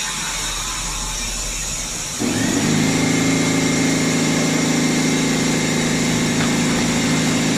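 Air supply motor for a trenchless pipe-lining rig switching on with a steady hum. About two seconds in, a louder steady drone takes over as air is driven into an epoxy-soaked pipe liner, inflating it.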